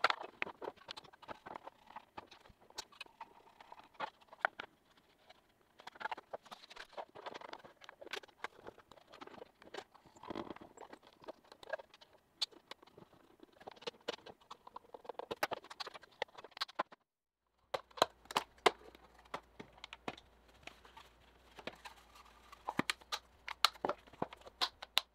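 3D-printed plastic box parts clicking and knocking as they are handled and fitted together by hand. A screwdriver works at a hinge. About 17 seconds in the sound drops out for a moment, then the clicks go on over a faint low hum.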